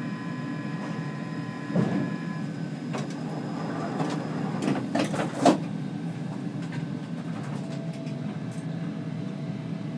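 Stockholm C20 metro train: a steady low rumble with a thin high whine that stops about two and a half seconds in. Several sharp clacks come through, the loudest around halfway.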